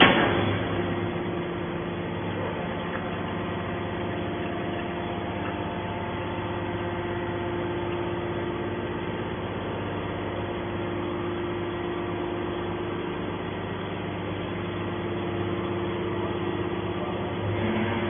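Heavy scrap-metal recycling machinery, a hydraulic baler and crane, running steadily: an even hum with a few held tones. A sharp knock comes right at the start.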